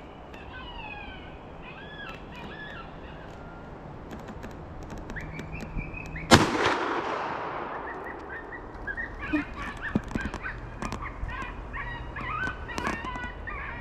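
A single 20-gauge shotgun shot about six seconds in, sharp and loud with a trailing echo, fired at a coyote that has come in to the call. Repeated wavering animal distress cries from an electronic predator call play before and after the shot.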